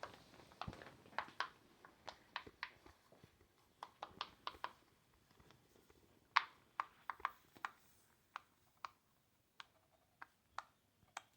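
Silicone pop-it fidget toy being popped bubble by bubble: a string of soft, sharp pops at irregular spacing, a few a second.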